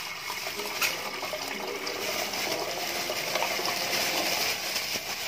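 Tap water running steadily into a stainless steel pot, with one sharp knock about a second in.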